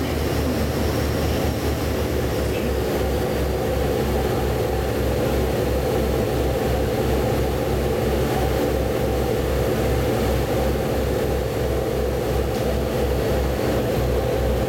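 A ferry's engines running heard on board, a steady low drone with a throb pulsing about three to four times a second, over the rushing of the hull through the water.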